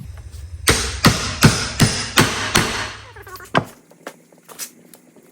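A hammer striking a metal mower-deck spindle assembly, most likely driving a bearing back in: six quick blows in about two seconds, then one more a second later. A low hum underneath stops after the last blow.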